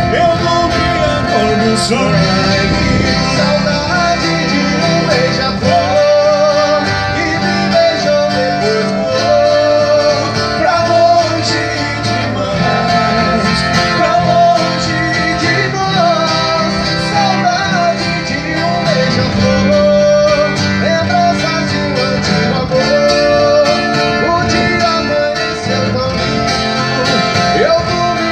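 Live sertanejo-style country music from two acoustic guitars, with a wavering melody line over steady strummed accompaniment.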